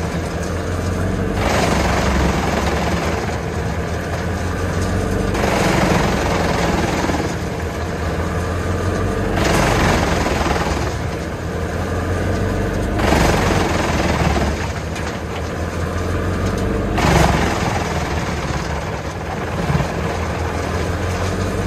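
Junkkari HJ500 tractor-driven wood chipper working under load, with the Valtra T190 tractor engine running steadily. Louder surges of chipping noise come about every four seconds as logs are fed in.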